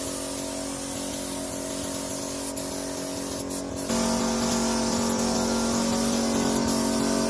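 Air spray gun hissing steadily as it sprays paint, over the steady hum of a running air compressor. Both get louder and fuller from about four seconds in.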